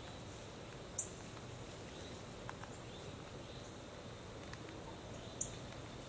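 Outdoor woodland ambience: a steady soft background hiss with scattered faint high chirps. Two sharp high clicks come about a second in and near the end.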